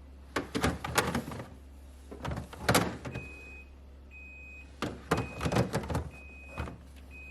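Plastic fridge drawers and storage bins clattering as they are slid and handled, in three bursts of knocks. From about three seconds in, a high electronic beep repeats roughly once a second, like a refrigerator's door-open alarm, over a steady low hum.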